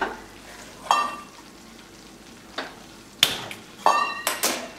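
A stainless-steel bowl clinks against the gas stove's burner grate as it is set down: several sharp metallic knocks that ring briefly, the loudest about three seconds in. Under the knocks, semolina sizzles faintly as it roasts in ghee.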